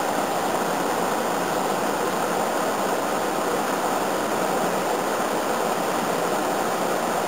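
Air conditioner's outdoor unit running, its fan giving a steady, even whoosh.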